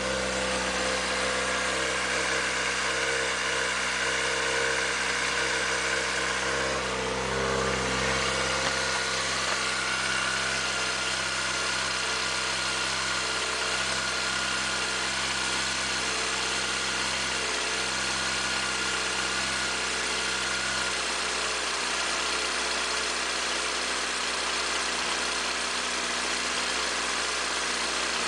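A steady mechanical hum made of several held tones, shifting a little about seven seconds in and losing its lowest tones about twenty-one seconds in.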